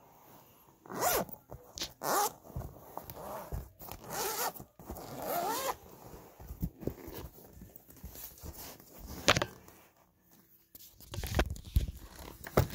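The zipper of a Prat Europa leather portfolio case being pulled along the case's edge in several short runs with pauses between.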